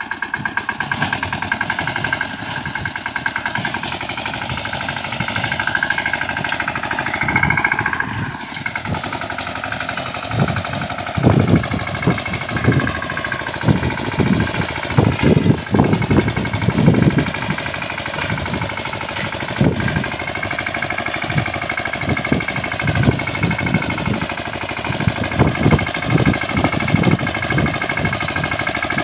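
Mahindra 215 mini tractor's single-cylinder diesel engine running steadily under load while it pulls a rotavator through dry soil. From about eleven seconds in, irregular heavy low thuds come through as the rotavator churns the ground.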